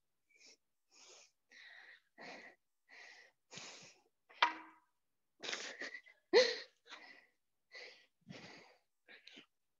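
A woman's quick, heavy breathing under exertion during lunges, short puffs of breath about every half second to second. Two louder, partly voiced breaths come around the middle.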